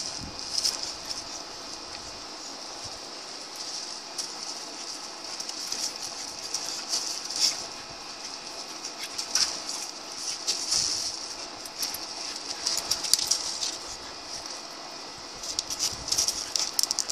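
Two dogs, a Siberian husky and a Rottweiler puppy, scuffling in play: paws and claws scraping and clicking on concrete and lava rock, with a denser run of clicks near the end, over a steady high hiss.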